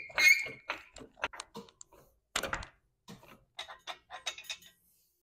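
Steel floor jack and jack stand being worked: a high squeak just after the start, then a series of light metallic clicks, a louder clank about two and a half seconds in, and more clicks as the jack stand is set.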